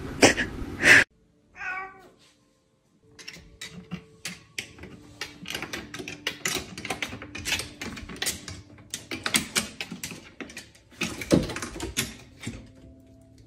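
A cat gives one short meow about a second and a half in. After a short pause come many irregular taps and clicks as a cat climbs a wooden ladder fixed to the wall, its paws and claws knocking on the rungs.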